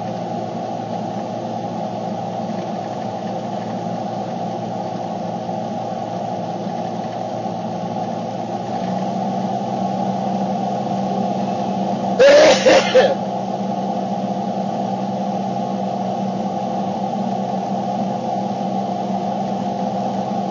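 Steady car-cabin hum of a running engine and road noise. About twelve seconds in there is a brief loud burst of a few quick knocks.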